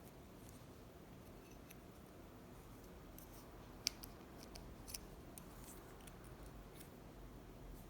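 A few faint metallic clicks from a tiny key being handled and tried in an old padlock, two sharper clicks near the middle.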